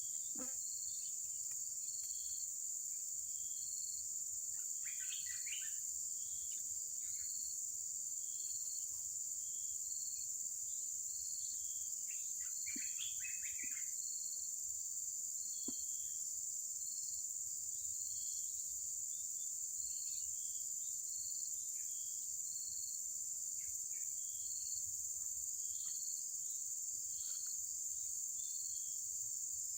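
Steady high insect chorus, crickets or cicadas, with a short chirp repeating at an even pace. Two brief bursts of higher calls come about five and thirteen seconds in.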